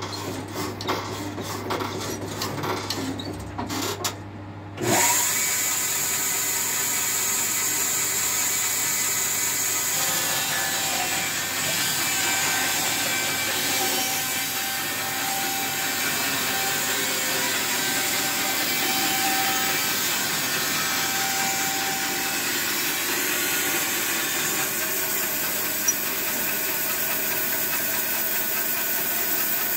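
Holzmann BBS 550smart band sawmill: a few knocks and clicks, then about five seconds in the saw starts up suddenly and runs steadily as the hand-pushed head carries the blade along through the log.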